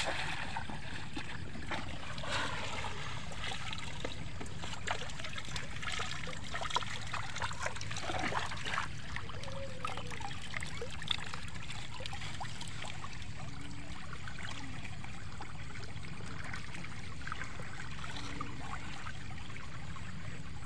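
Shallow water trickling and flowing steadily through a sandbagged gap in a flooded rice-paddy bund, with scattered small splashes and knocks, mostly in the first half, as a woven bamboo fish trap is handled in the water.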